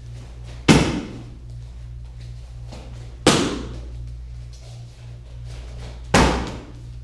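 Three sharp smacks of kicks striking a target pad, roughly two and a half to three seconds apart, each with a short echo, over a steady low hum.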